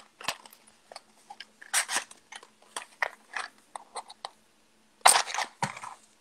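A box of matches handled, with small scratchy clicks and rustles as it is opened and a match taken out, then a wooden match struck on the side of the box about five seconds in, flaring with a loud scratchy hiss.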